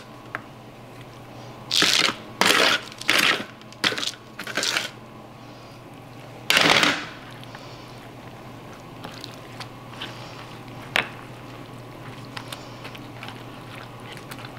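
About six short scraping strokes of a spatula as stuffing is scooped onto a soaked sheet of yuba, followed by faint handling sounds while the yuba is folded around the filling, with one sharp tap about eleven seconds in.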